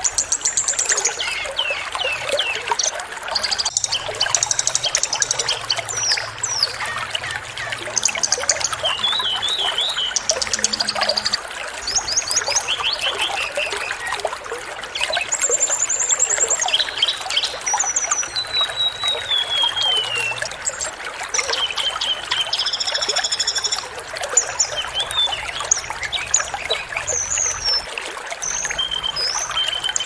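Small songbirds chirping in quick trills, rapid repeated notes and short whistles, one a long falling whistle past the middle, over a steady rush of running water.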